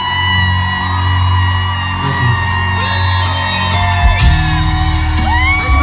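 Loud live band music: a long held note over heavy bass, with drums and cymbals coming in about four seconds in.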